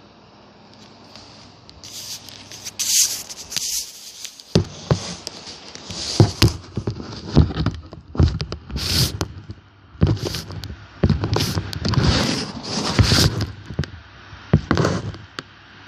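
Unboxing handling noise: packaging and the unit being moved about, giving irregular rustling, scraping and knocks that start a few seconds in and keep coming.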